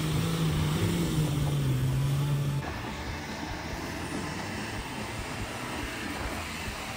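Nissan Patrol with a swapped-in BMW M57 straight-six turbodiesel working hard through snow, its engine note falling slightly. About two and a half seconds in, the sound cuts to a quieter, steadier engine noise as the Patrol climbs through the snow.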